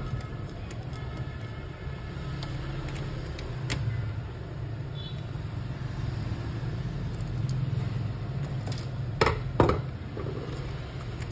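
Light clicks and, about nine seconds in, two sharp knocks from a copier fuser unit's metal frame being handled and unscrewed. Under them runs a steady low rumble.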